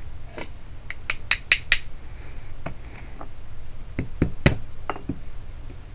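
Scattered sharp clicks and light taps of small metal parts being handled, with a quick run of about five clicks a second in and another few around four seconds in, as a car trunk lock cylinder is worked on.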